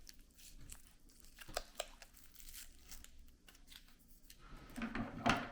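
Plastic wrapping crinkling and crackling in short irregular bits as it is worked around a 4-cell LiPo battery pack, with a louder rustle near the end.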